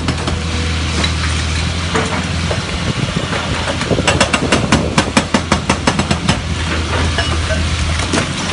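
Atlas Copco hydraulic breaker on a Caterpillar excavator hammering rock, over the excavator's steady diesel engine running. The blows come fast and sharp, several a second, and are most distinct for about two seconds from about halfway in.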